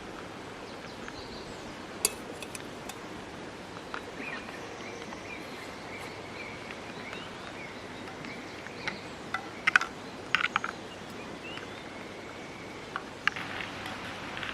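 Steady rush of a nearby stream, with a few sharp clinks, twice in quick pairs around the middle.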